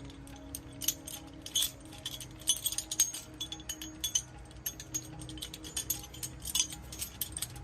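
Irregular small metallic clinks and rattles, as of metal parts and tools being handled, over a faint steady hum.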